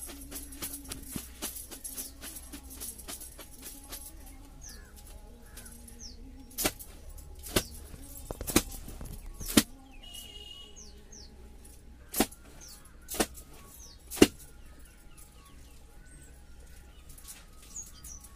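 Small birds chirping in short high calls scattered throughout, over a run of small clicks in the first few seconds. Sharp knocks come about once a second, four in a row partway through and three more a little later.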